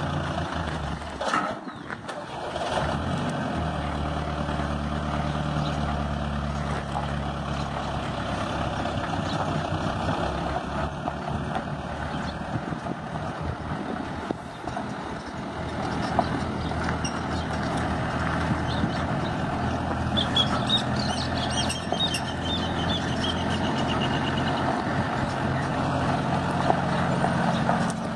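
Diesel engine of a Rastrojero pickup running steadily as it tows a grain hopper trailer.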